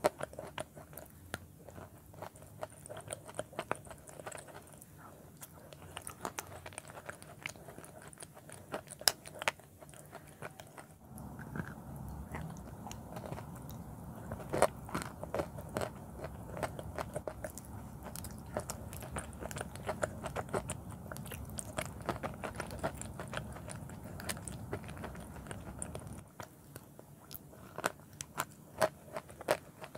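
Close-up crunching and chewing of chalk pieces mixed into a clay paste, eaten off a spoon: a quick run of sharp crunches.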